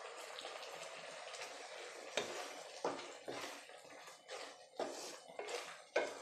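Paneer bhurji masala simmering in a pan with a steady bubbling hiss. From about two seconds in, a wooden spatula stirs it, with a series of scrapes and knocks against the pan.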